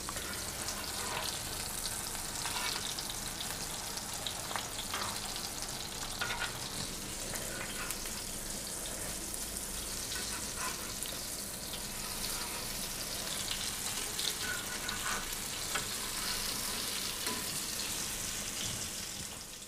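Potato cutlets in a besan-and-cornflour batter shallow-frying in hot oil: a steady sizzle with occasional crackles.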